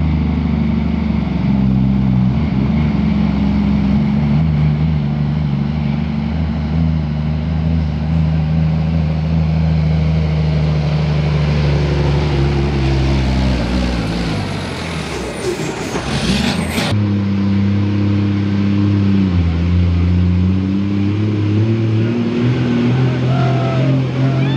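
Diesel engine of a pulling truck running hard under load, its pitch mostly steady with dips. Past the middle a loud hissing rush rises and cuts off suddenly, and the engine carries on at a different pitch.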